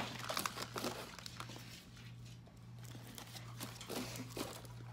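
Thin plastic bag rustling and crinkling in irregular bursts as a hand rummages through the wrapped candy inside, busiest at first and again near the end. A low steady hum runs underneath.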